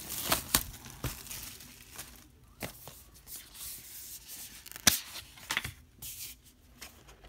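Plastic shrink wrap being torn off a Blu-ray steelbook and crumpled, a run of crinkling with a few sharp snaps, the loudest about five seconds in.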